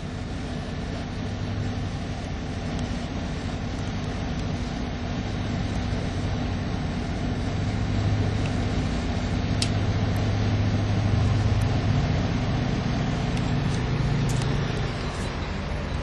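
An engine running steadily at low revs, slowly growing louder, its pitch rising slightly near the end.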